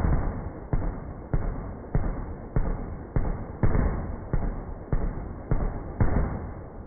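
Machine gun firing full-auto, heard slowed down: a steady string of deep, dull shots about every 0.6 s, each trailing off, stopping about six seconds in.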